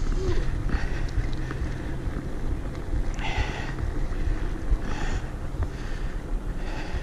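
Wind buffeting a bike-mounted or helmet action camera's microphone while riding, over a steady low rumble of the bike rolling along.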